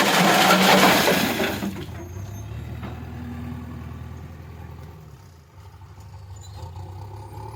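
Heavy diesel engine running with a steady low hum, under a loud rushing hiss that lasts about two seconds at the start and then fades away.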